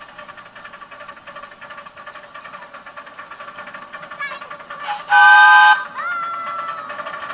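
Miniature railway locomotives signalling on whistles over the steady, fast-ticking running of a small locomotive engine. About five seconds in comes a loud chord-like blast lasting under a second. It is answered by a fainter single-note steam whistle toot from the approaching steam locomotive, sagging slightly in pitch.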